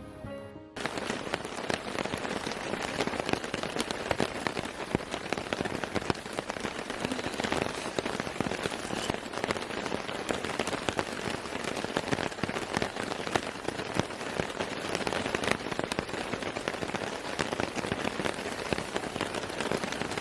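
Steady rain with many separate drops striking a surface. A short bit of music cuts off under a second in.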